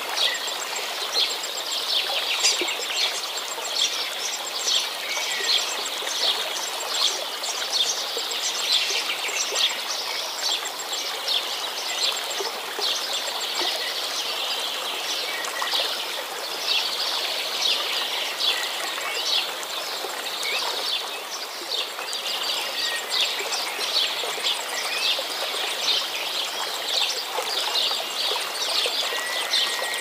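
A chorus of small songbirds chirping and singing rapidly over the steady rush of running water.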